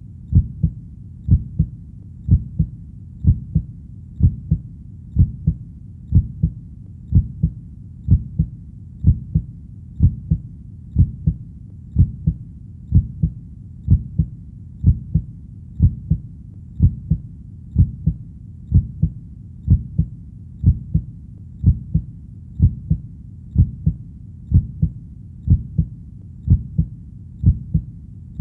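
A heartbeat beating steadily at about one beat a second, each beat a low double thump (lub-dub), over a faint low background.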